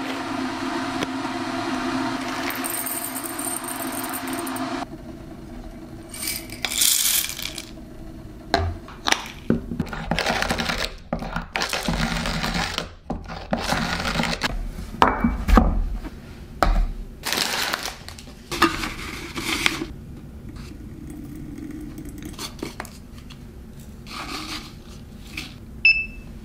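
Coffee beans poured from a bag into a ceramic cup, then a hand coffee grinder handled and cranked: a run of irregular clicks, knocks and crunches. A short electronic beep comes near the end.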